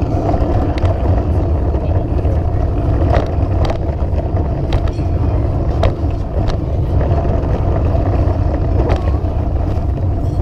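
A steady, loud low rumble with a few scattered clicks or knocks, like the sound of the camera being moved along the sidewalk.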